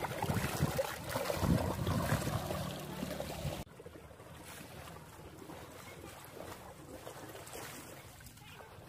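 Water sloshing and splashing around legs wading through knee-deep water, loud and close at first, then cutting off suddenly about three and a half seconds in to fainter, more distant splashing.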